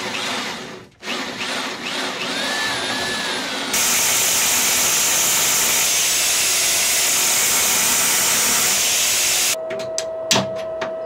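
Power drill boring holes through the steel deck plating for a chain plate, its motor speed rising and falling, with a short pause about a second in. From about four seconds a louder, steady power-tool run with a strong hiss, then a quick series of sharp metallic taps and clicks near the end.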